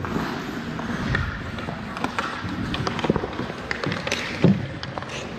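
Ice hockey play at close range: skate blades scraping the ice and sticks clacking on the ice and puck, with a louder thump about four and a half seconds in.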